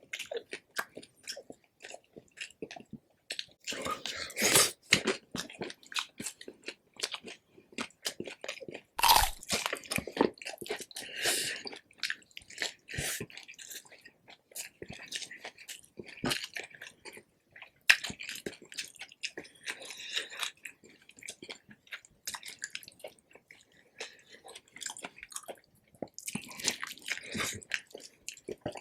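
Close-miked chewing of crispy pork belly (lechon): crackling crunches of the skin, with louder bites about four seconds in, around nine to twelve seconds, and near the end.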